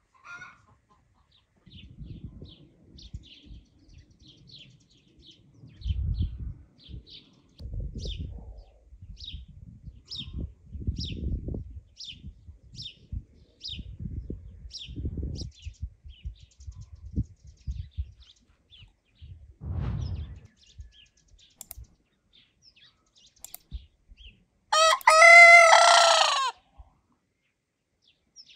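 A rooster crows once near the end, the loudest sound here, about a second and a half long. Before it a small bird chirps in a steady run of short high notes over low knocks and rustling.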